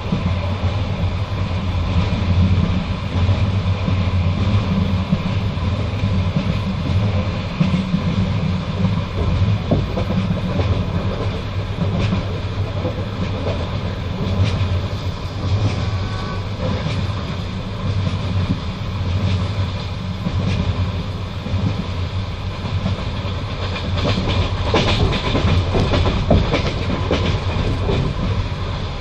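Passenger train carriage running at speed: a steady low rumble with the wheels clacking over rail joints. The clacks come thickest and loudest a little past two-thirds of the way through.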